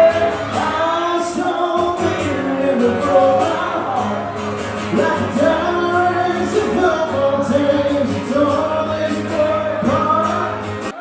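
Country song sung by a man over instrumental backing, with held, bending vocal notes over a steady bass line.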